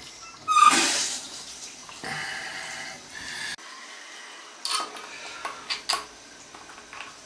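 Cloth rubbing and scrubbing on the porcelain base of a toilet in two stretches, then several separate sharp plastic clicks and taps as the toilet seat's bolt hardware is fitted.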